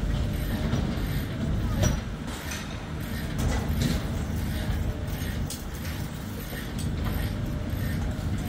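Steady low rumble of a running engine or machinery, with several metal clanks and knocks from a fairground ride being dismantled.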